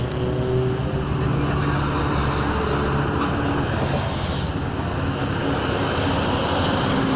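A steady engine drone with a low hum that shifts slightly in pitch.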